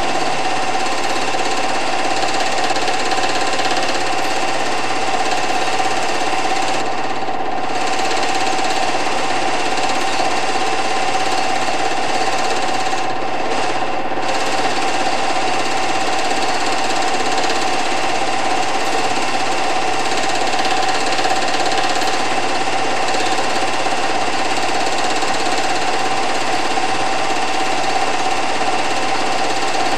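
Film projector running: a steady, rapid mechanical clatter from the film advancing, with a constant whine over it.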